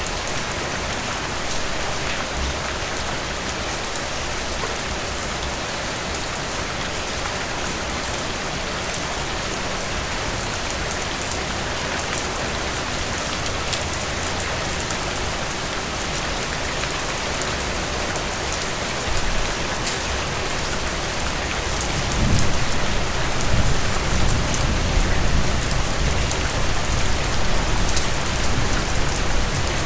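Heavy rain falling steadily, with many sharp drips and spatters of drops. A low rumble comes in about three-quarters of the way through and carries on.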